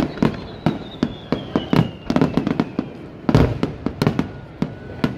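Fireworks display: a rapid barrage of aerial shell bursts, several bangs a second, with the densest cluster about three and a half seconds in. A faint whistle falls in pitch over the first three seconds.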